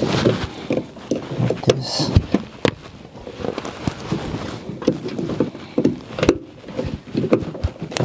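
Irregular plastic clicks and knocks with cloth rustling, as hands work at an electrical wiring connector inside a minivan's sliding door.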